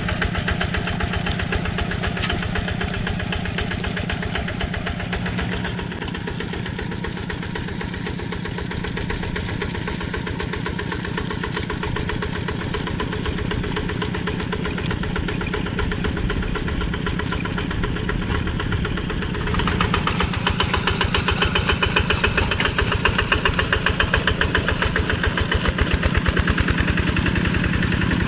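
Single-cylinder diesel engine of a two-wheel hand tractor running steadily under load as it drags a levelling board through flooded rice-field mud. About two-thirds of the way through it grows louder and harsher.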